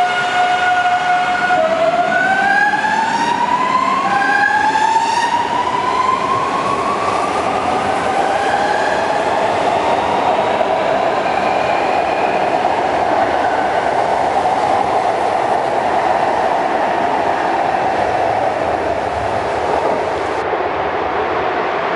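CPTM series 9000 electric train accelerating away from the platform. Its traction motors whine in several rising steps during the first few seconds, then the whine gives way to a steady rolling rumble as the cars pass.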